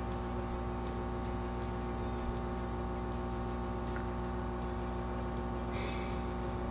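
A metal spoon stirring marinated prawns in a glass bowl: faint scrapes and light clicks against the glass, over a steady hum.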